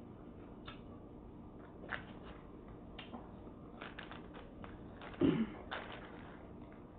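Close-up eating sounds: chewing with a string of small mouth clicks and smacks, and one louder brief sound about five seconds in.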